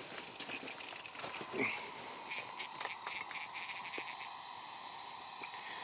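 Small spinning reel on an ice-fishing rod being worked while a hooked fish is fought: faint, quick clicking, about five ticks a second, for a couple of seconds in the middle, with scattered light ticks and rustles around it.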